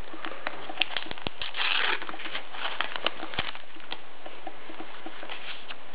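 A sticker packet wrapper being torn open and handled: quick crackles and clicks, with a short ripping rush just under two seconds in, then only a few light ticks.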